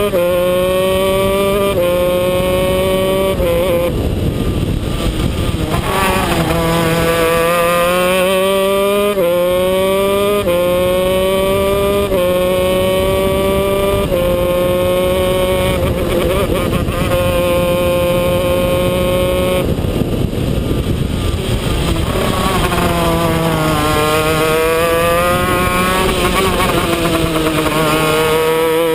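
125cc two-stroke shifter kart engine under race load. Its pitch climbs and drops back in steps as it is shifted up through the gears. Around the corners it falls away as the driver lifts and downshifts, then revs up again.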